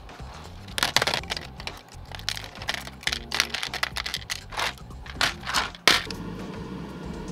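Resin garage-kit parts clattering as they are dropped by hand into a plastic tub: a run of sharp clicks and knocks, the loudest one near the end, over background music.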